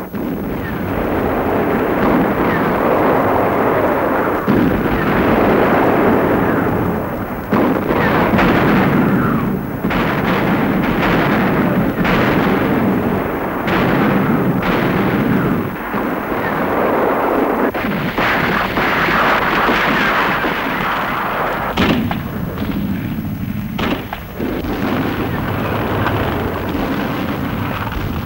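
Battle sound of an artillery barrage: a continuous loud rumble of artillery fire and explosions, broken by many irregular sharp shots and blasts.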